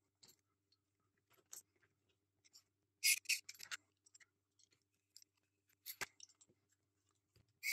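Faint handling sounds of small screws being fitted into a small plastic disc: scattered light clicks and scratchy scrapes, with a cluster of scrapes about three seconds in and a sharp tap about six seconds in.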